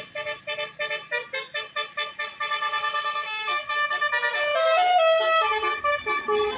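Bus telolet horn, a multi-tone musical air horn. It starts with quick repeated chord blasts, about four a second, then plays a tune of held notes that step up and down.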